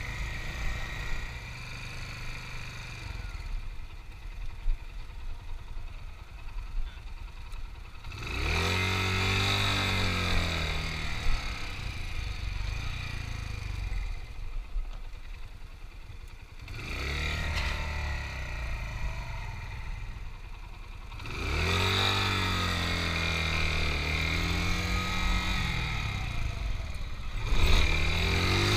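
Small 250 cc motorcycle engine accelerating and easing off in repeated runs, its pitch rising and falling four times, with quieter low-rev stretches between. A few short clatters come in the first quiet stretch.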